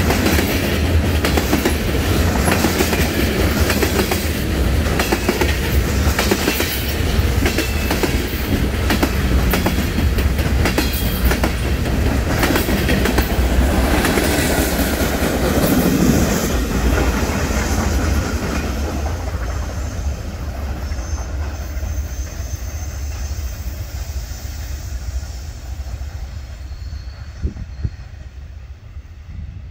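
Norfolk Southern freight cars rolling past close by: a low rumble with wheels clicking over the rail joints. The sound fades from about 18 seconds in as the end of the train passes and draws away.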